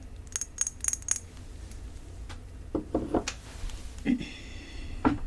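Taps and clinks on glass perfume bottles: a quick run of sharp taps with a brief high ring about half a second in, more taps around three seconds in, then a ringing tone and a knock near the end.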